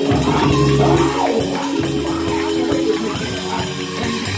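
Church band music: held keyboard chords over a bass line, with a steady quick beat of cymbal or tambourine ticks and drums.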